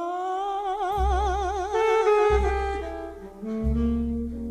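Slow jazz ballad: a woman's sung note held with wide vibrato fades about a second and a half in, and saxophone and brass take over above a deep bass that sounds a note roughly every second and a quarter.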